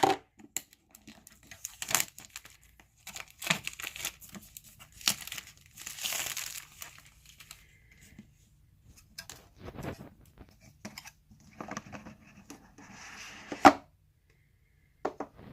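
Cardboard retail box and packaging of a Google Chromecast being opened by hand: tearing of the seal and crinkling, with scattered clicks and scrapes of the box. A single sharp snap near the end is the loudest sound.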